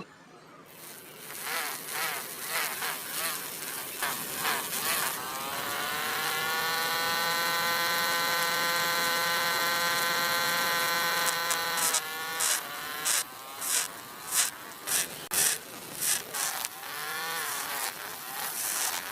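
Small electric motor of a DIY miniature tractor model buzzing. About six seconds in it settles into a steady high whine for about six seconds. It then swells and drops in quick pulses, about one or two a second.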